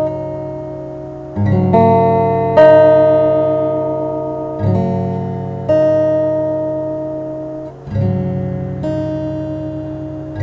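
Background music: a slow acoustic guitar piece, plucked notes and chords struck every second or two and left to ring and fade.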